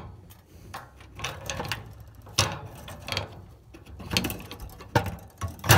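Metal clicks, knocks and scraping as the main burner gas-line fitting at the base of a gas water heater is worked loose by hand. About six sharp clicks come at irregular intervals, the loudest near the end.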